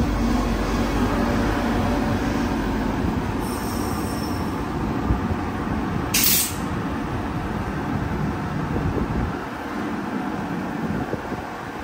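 Queensland Rail electric suburban train moving past, with a steady rumble of wheels and running gear. A short, sharp hiss about six seconds in is the loudest moment, and the low rumble eases off near the end.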